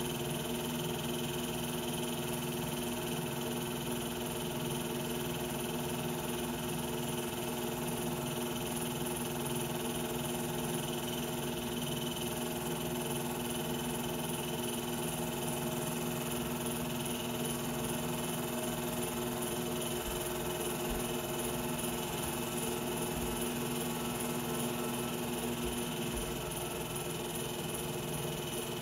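Steady mechanical hum and whir of a running film projector, several fixed tones over a hiss.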